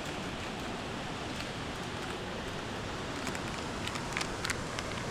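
Campfire crackling, with a few small sharp pops from about three seconds in over a steady hiss.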